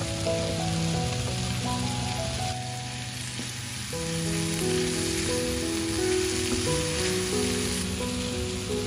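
Bacon, mushrooms and diced onion sizzling steadily in a frying pan as a wooden spatula stirs them, with soft background music of slow held notes underneath.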